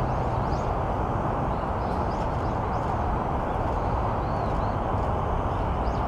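Steady outdoor background noise, a dense rushing hiss with a low rumble under it, and a few faint high chirps now and then.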